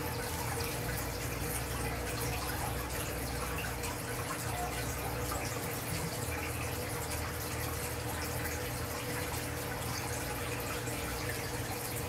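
Canary splashing and fluttering in a shallow metal dish of water, with small splashes and drips over a steady background hiss and low hum.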